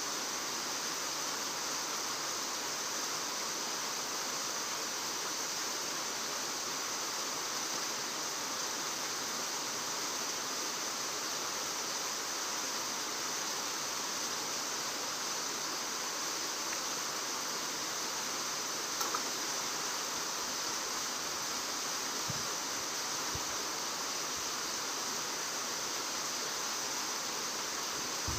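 Steady, even outdoor background hiss with no speech, broken only by a faint click or two.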